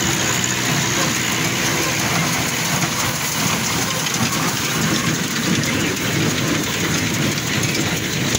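Machinery running with a loud, steady noise; a low engine hum fades out about half a second in.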